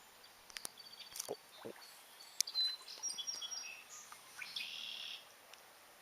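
Songbirds chirping: a scattering of short, high, thin notes, with a few faint sharp clicks among them.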